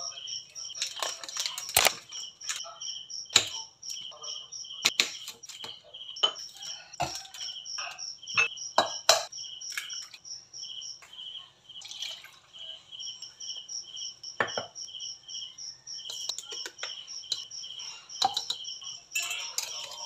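Crickets chirping in a steady run of short, high-pitched pulses, under the clinks, taps and knocks of kitchen work: jars, utensils and a ceramic mixing bowl handled, and an egg cracked into the bowl.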